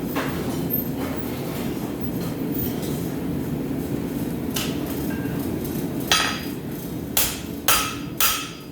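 Steady rushing noise of the forge running, then, about six seconds in, a rounding hammer striking hot steel bar on the anvil: four ringing blows, speeding up toward the end.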